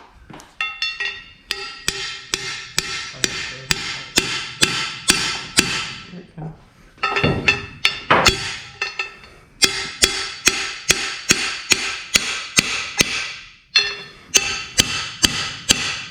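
Hammer blows on a steel part of a Bandolero race car, about three a second, each with a ringing metallic tone, in runs broken by short pauses, driving a stuck part off slowly.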